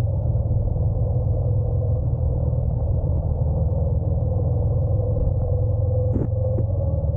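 Honda NC750X's parallel-twin engine running at a steady pace while riding, heard as a steady low rumble mixed with wind. A faint steady tone runs underneath, and there is a brief click about six seconds in.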